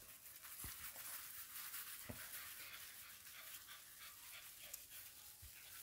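English bulldog puppy panting softly, with a few faint soft thumps.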